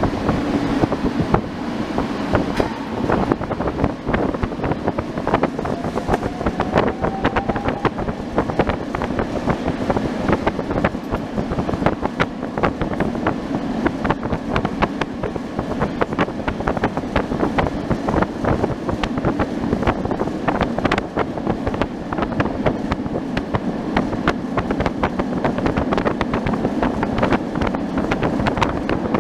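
Heritage tram running through a tunnel: steady rumble of wheels on rails with dense rattling and clicking throughout, and a faint rising whine about six seconds in.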